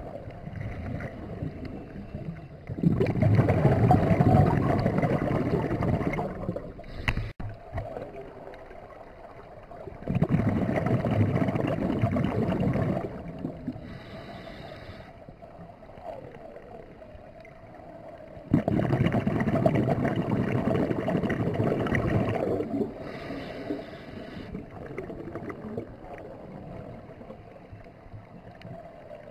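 Scuba diver breathing through a regulator underwater: three long rushes of exhaled bubbles, about eight seconds apart, with a shorter, softer hiss of each inhale between them.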